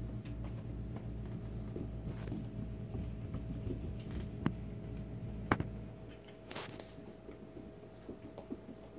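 Baby goats' small hooves and a dog's claws tapping and skittering on a hardwood floor as they play, with a couple of sharper clicks about four and a half and five and a half seconds in. A steady low hum runs underneath.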